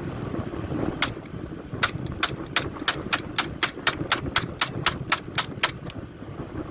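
A semi-automatic 9mm pistol with a 3D-printed lower fired from a 3D-printed PETG magazine. There are two shots about a second apart, then a rapid string of about fifteen more at roughly four shots a second, stopping near the end as the magazine runs dry.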